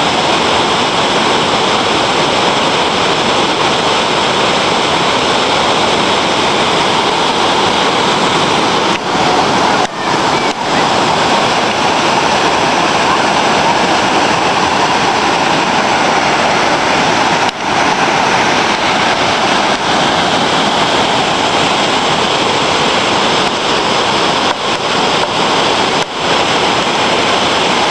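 Waterfall rushing: a loud, steady roar of falling water, broken by a few momentary dips.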